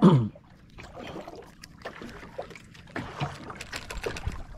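Irregular knocks and clicks of handling in a small boat, after a short, loud sound falling in pitch right at the start.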